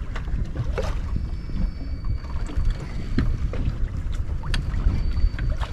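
Low rumble of wind buffeting the microphone aboard a fishing boat, with scattered knocks and a faint, thin high whine that comes and goes.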